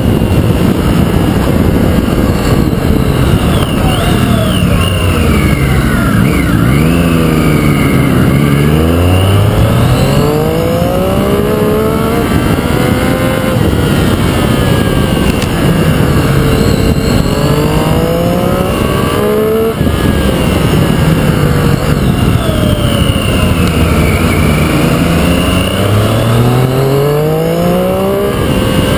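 Triumph Street Triple RX's 675 cc inline-three engine heard from onboard, the revs falling as the bike slows and then climbing again as it accelerates, about three times over, on a steady rush of noise.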